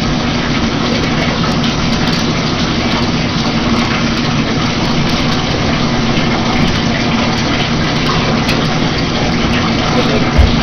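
Steady rush of running water from a bathtub tap or shower sprayer, with a constant low hum under it, and a single thump near the end.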